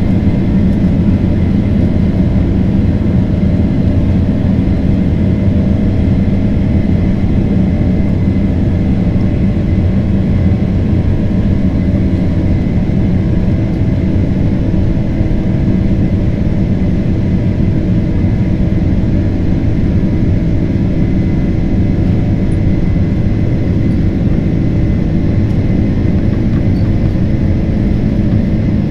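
Boeing 767-300ER's jet engines at takeoff thrust during the takeoff roll, heard from inside the cabin: a loud, steady rumble with steady engine tones.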